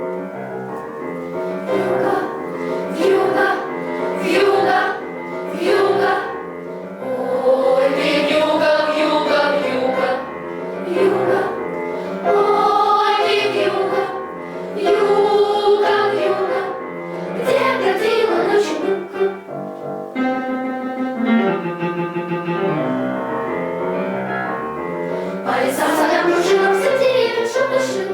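Children's choir singing in unison with piano accompaniment.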